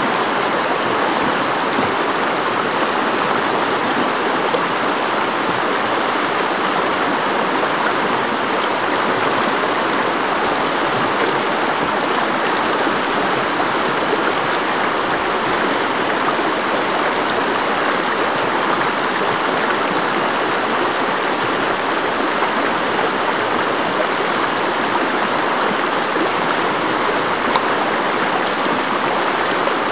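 Whitewater river rapid rushing steadily, an even, unbroken sound of churning water.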